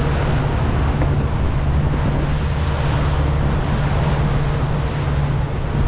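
Loud steady wind rushing over the microphone, with a low steady hum beneath it from a boat's engine running.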